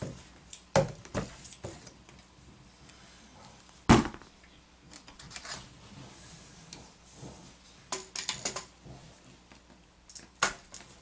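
Scattered clanks and knocks of hand tools and metal fittings being handled during plumbing work, the loudest a single knock about four seconds in, with a quick run of clicks around eight seconds.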